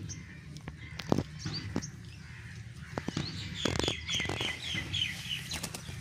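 Parakeets at a wire-mesh cage: a few sharp taps in the first half, then a quick run of short, high chirps about three and a half seconds in. Wings flap near the end.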